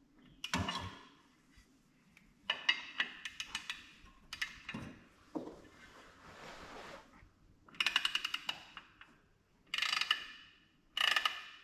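Hand ratchet clicking in several short bursts of rapid clicks, as a bolt on a Polaris RZR XP 1000's clutch is turned.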